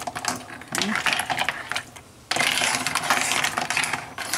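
Littleneck clams clattering in a pot of boiling white-wine sauce: a rapid run of hard shell clinks and bubbling pops, with a brief lull about two seconds in.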